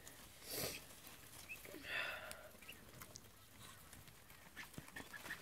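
Ducklings peeping faintly as they feed, with a few short high chirps and two brief rustles, one about half a second in and one about two seconds in.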